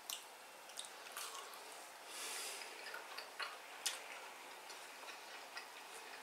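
Faint, scattered mouth clicks and smacks of someone chewing a bite of bratwurst with mustard, with a brief soft rush of breath about two seconds in.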